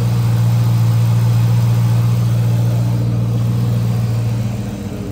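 2003 Ford Mustang SVT Cobra's supercharged 4.6-litre DOHC V8 idling steadily with the hood open. The running engine is called "nice and healthy." It turns a little quieter near the end.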